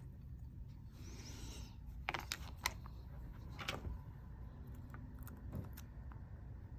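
Small hand tools clicking and tapping against iPhone parts during a repair: a brief scrape about a second in, then a few sharp metallic clicks, over a low steady hum.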